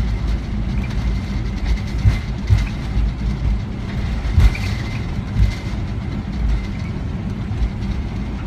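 Cabin rumble of a Boeing 777-300ER rolling on the ground after landing. Irregular low thumps come through as the wheels run over the pavement, with a few faint ticks.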